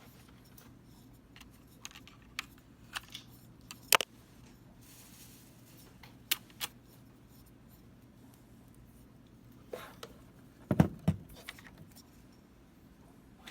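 Hard objects being handled: scattered sharp clicks and taps, one loud click about four seconds in and a heavier low knock a little after ten seconds.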